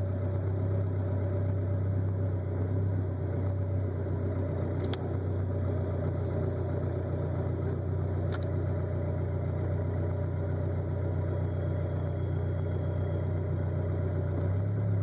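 Mazda Miata's four-cylinder engine idling steadily, with two faint sharp ticks about five and eight and a half seconds in.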